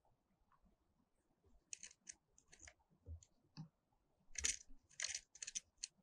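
Grey-headed woodpecker's claws and bill scratching and clicking on a wooden bird feeder and its pole as it clambers about: a run of short, dry scratches, the loudest about four and a half seconds in.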